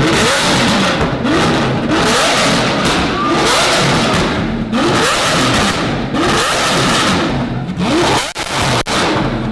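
Lamborghini Aventador SVJ's V12 engine revved over and over in quick blips through a Valvetronic exhaust, each rev rising and falling in pitch. A few sharp cracks come near the end.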